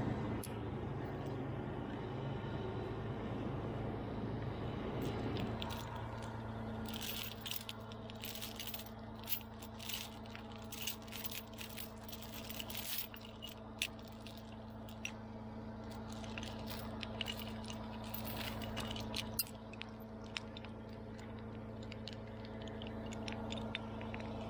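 Crane engine running, changing to a steady low hum about five seconds in, with scattered scraping and clinking over it, thickest through the middle.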